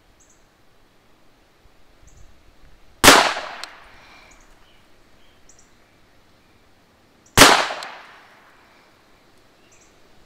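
Two 9mm pistol shots from a Canik TTI Combat, fired about four seconds apart in slow aimed fire, each followed by a short echo that fades out.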